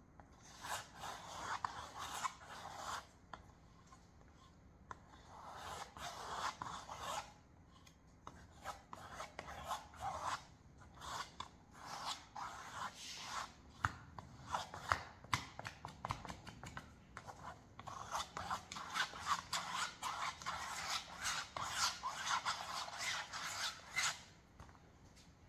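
Paintbrush stroking paint back and forth on a stretched canvas: a scratchy rubbing of bristles on the weave. It comes in bursts of quick strokes with short pauses between them, and the longest run of strokes is in the last third.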